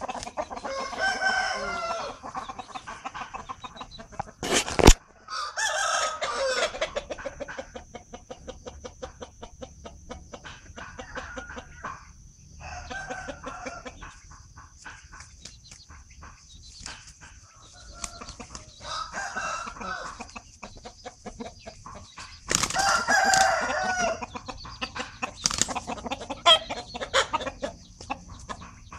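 Chickens clucking, with roosters crowing several times; the loudest crow, about two seconds long, comes late on. A single sharp knock sounds about five seconds in.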